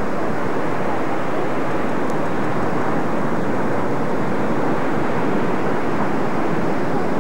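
Ocean surf breaking in big white waves, a steady rushing noise with no lulls.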